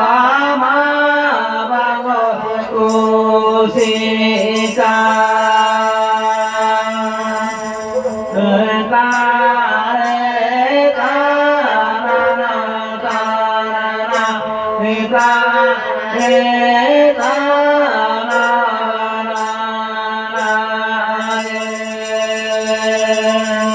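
Women singing a Santali folk song into microphones over a bowed fiddle, whose steady drone and sliding melody carry beneath the voices. Small jingles are shaken in patches.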